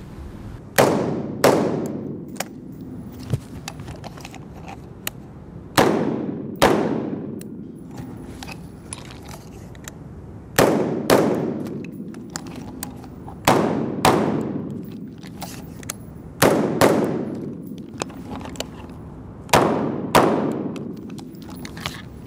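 Rifle fired in six pairs of quick shots (double taps), with a pause of a few seconds between pairs while the shooter switches shoulders. Each shot echoes and rings off the walls of the indoor range.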